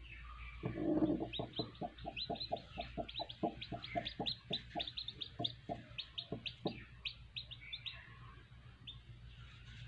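Broody hen clucking in a fast run of short clucks, about three or four a second, as she is disturbed on the nest, with the short, high peeps of newly hatched chicks beneath her going on over it.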